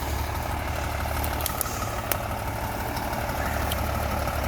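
Heavy diesel log truck engine idling steadily, with a few short clicks over it.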